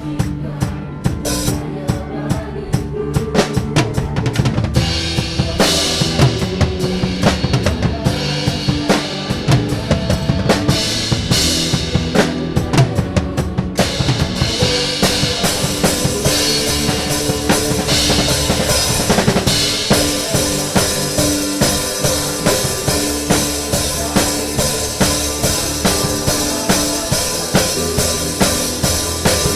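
A drum kit played with a worship band: bass drum, snare and rimshots keep a steady beat under sustained bass and keyboard notes. From about halfway the cymbals come in as a continuous wash and the playing gets fuller.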